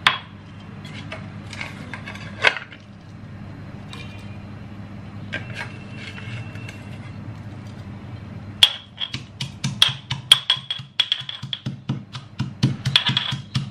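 Metal pestle pounding in a metal mortar, crushing roasted garlic, chillies and tomato. A few scattered clinks come first, then about two-thirds of the way in a fast run of ringing metal-on-metal strikes, several a second, over a low steady hum.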